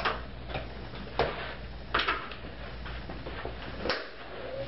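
A handful of sharp, irregular clicks and knocks from a road bike on an indoor trainer as the rider settles onto it and gets her feet on the pedals, over a steady low hum.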